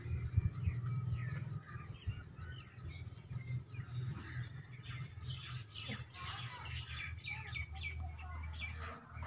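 Small birds chirping, many short chirps in quick succession that grow busier after about five seconds, over a steady low hum.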